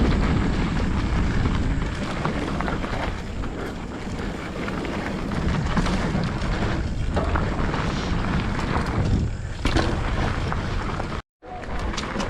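Wind buffeting a helmet-mounted microphone while a mountain bike rolls fast down a dirt trail, with a few sharp knocks from the bike over bumps. The sound cuts out completely for a moment about a second before the end.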